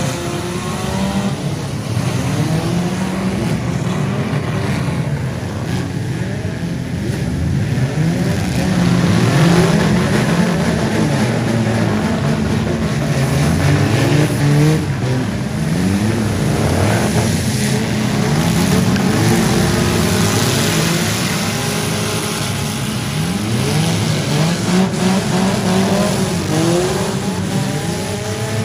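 Several four-cylinder demolition derby cars revving their engines hard and repeatedly, many engine pitches rising and falling over one another.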